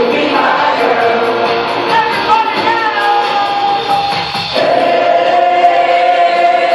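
Loud party music with singing.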